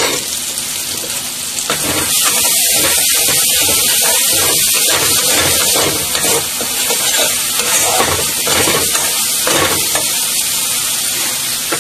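Spice masala frying in hot oil in a metal kadai, sizzling steadily while a flat spatula stirs it and scrapes the pan; the sizzle grows louder about two seconds in.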